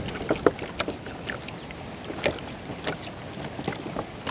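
Hands squelching and slapping thick yogurt into a heap of raw whole chickens in a large basin, with irregular wet smacks.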